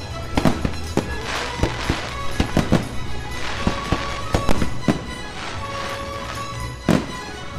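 Fireworks display: a rapid run of shell bursts and crackling, with one loud bang about seven seconds in, over show music.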